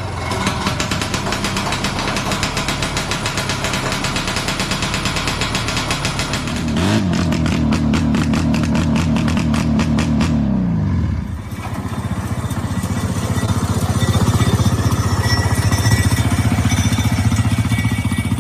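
Vintage snowmobile engines running. One revs up about seven seconds in, holds high, then falls away near eleven seconds, and a steadier engine runs on after that.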